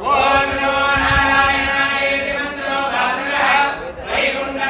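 Sanskrit mantras chanted continuously in the steady recitation of a homam fire ritual.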